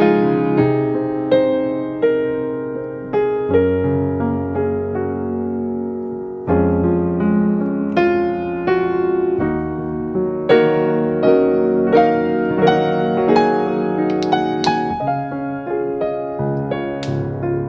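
Background piano music: single notes and chords struck about once or twice a second and left to ring out.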